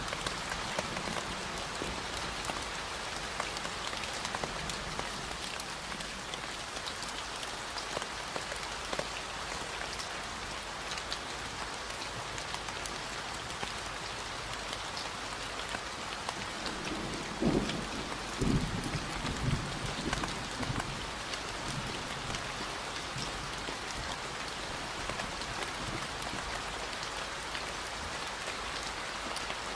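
Steady rain falling, a dense even patter of drops. A few brief low rumbles come just past halfway.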